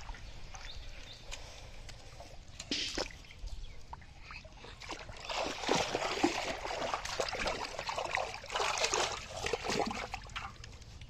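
Caught fish thrashing in shallow muddy water and in a water-filled metal pot: a dense run of splashing and sloshing from about five seconds in until near the end, quieter water sounds before it.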